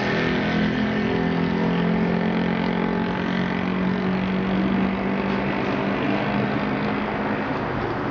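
Steady mechanical drone with a low hum inside a tunnel, the hum fading out near the end.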